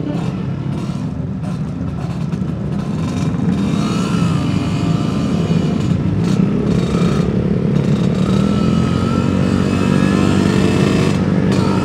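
Yamaha RXZ's two-stroke single-cylinder motorcycle engine running under way, getting gradually louder as the bike rides on.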